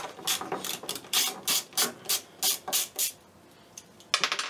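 Ratcheting screwdriver clicking in short back-and-forth strokes as it unscrews the nuts holding a hand saw's handle, about three strokes a second, then a quick rattle of clicks near the end.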